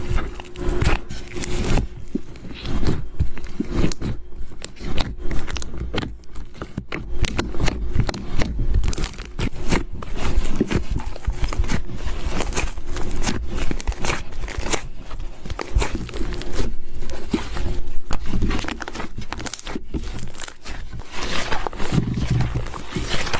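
Slime being squished, stretched and poked by hand: a dense, irregular run of sticky crackles, clicks and pops that goes on without pause.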